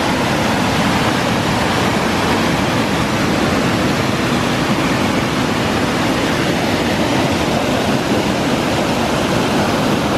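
Whitewater pouring over a concrete weir: a loud, steady rush of falling and churning water.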